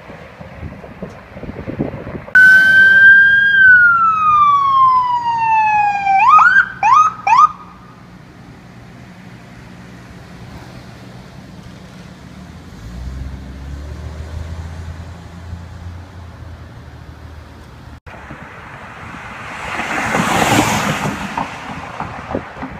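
Ambulance siren: a loud wail falling slowly in pitch, then three quick rising whoops, cutting off about seven seconds in. After it comes the low hum of the ambulance's engine as it drives past, and near the end a rush of passing vehicle noise.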